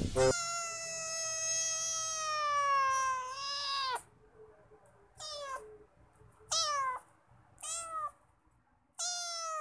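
A kitten meowing: one long drawn-out meow lasting about three and a half seconds and sliding slowly down in pitch, then four short meows about a second apart, each falling in pitch.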